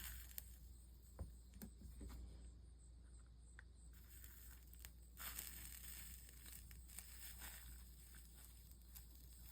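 Near silence with a steady low hum, a few faint scattered clicks and a brief soft hiss about five seconds in, from stained-glass soldering work.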